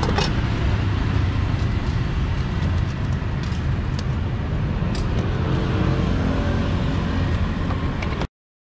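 Steady low rumble of street traffic, with a few light clicks of a metal spoon against the wok as fried corn is scooped out. The sound cuts out completely near the end.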